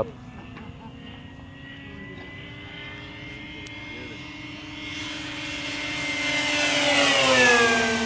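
Radio-controlled model warbird making a pass: its motor and propeller give a steady tone that grows louder, peaks about seven seconds in, and drops in pitch as the plane goes by.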